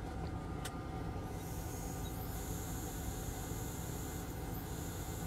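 Hot-air rework station blowing: a steady high hiss starts about a second in, over a low steady hum of bench equipment, while a small capacitor is reflowed onto a laptop motherboard.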